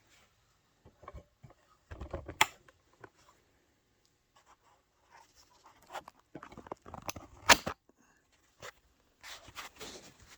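Handling noises from a scale RC crawler being moved about by hand: scattered rubs, knocks and sharp clicks in three short bursts, the loudest click about seven and a half seconds in.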